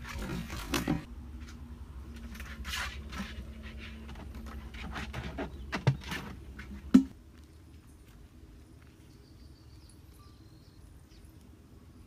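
A large plastic jug fish trap being handled and tipped, its thin plastic knocking and scraping in a run of sharp strokes, with the loudest knock about seven seconds in. After that only a quiet outdoor background remains, with faint short chirps.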